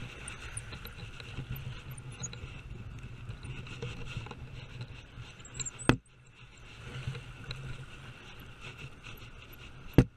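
Small surf waves washing over sand and wind rumbling on a chest-mounted action camera's microphone, a steady noisy wash. Two sharp knocks stand out, one about six seconds in and one near the end.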